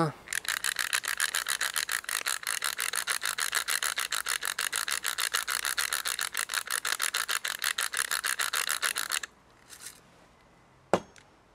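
Hand pepper mill being twisted to grind pepper into a mixing bowl: a fast, even run of gritty rasping strokes that stops about nine seconds in. A single sharp knock follows near the end.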